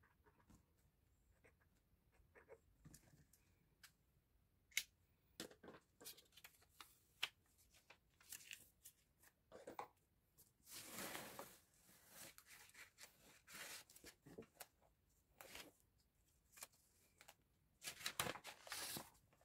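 Faint handling of plastic card sleeves and binder pages: scattered light taps and short slides and rustles, with a longer rustle about halfway through and another near the end.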